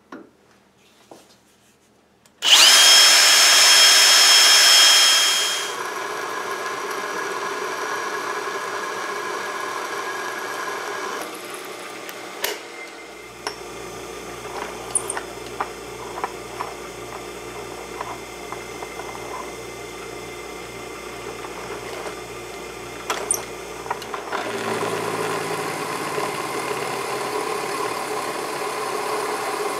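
A tool-post-mounted drill motor on a metal lathe starts up with a quickly rising whine and runs drilling a bolt hole in a steel chuck back plate. After a click, a drill press runs with a steady hum and fast rhythmic chatter as it drills and then counterbores holes in the steel plate.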